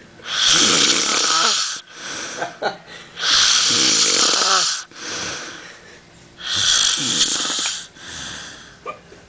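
A man snoring heavily: three loud, hissing snores about three seconds apart, each lasting over a second, with quieter breathing sounds between them.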